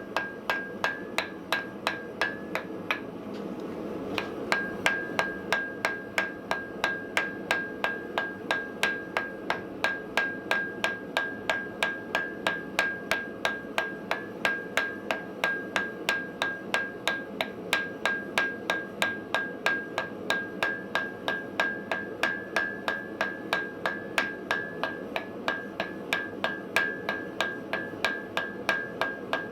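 Steady hammer blows on metal at an anvil, about three a second, each with a bright ringing note. The blows pause briefly about three seconds in, then resume at the same pace.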